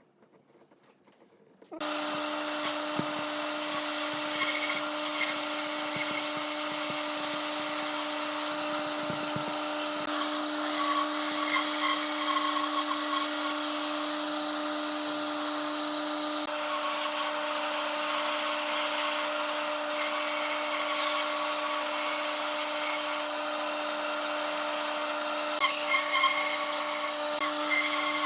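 Electric power tool switching on about two seconds in and running at a steady pitch while working wood.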